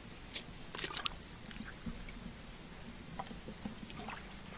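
Faint, scattered small splashes and sloshing of shallow muddy water as hands feel around in it, over a steady low hum.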